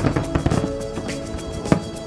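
Music playing, with fireworks banging at irregular intervals over it; one sharp bang near the end is the loudest.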